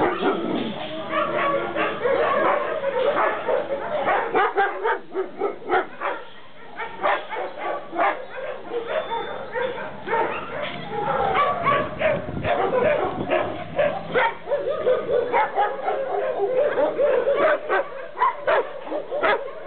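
Several shelter dogs in their kennels barking without pause, the barks overlapping one another.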